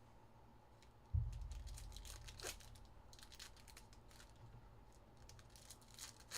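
Trading-card pack wrappers crinkling and tearing as packs are opened by hand, with a dull thump about a second in.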